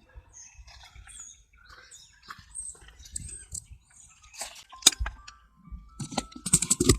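Scattered small clicks and light knocks of parts and tools being handled, with one sharp click about five seconds in and a quick run of rattling clicks near the end.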